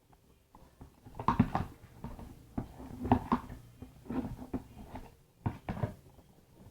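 Close-up chewing and lip-smacking of someone eating fried banana (pisang goreng), in several short bursts with pauses between.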